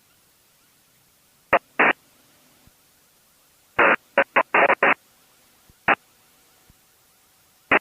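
Short, loud bursts of static on the aircraft's radio, as the frequency is keyed briefly with no voice. There are two bursts about a second and a half in, a quick run of five near the middle, one more, and two at the end.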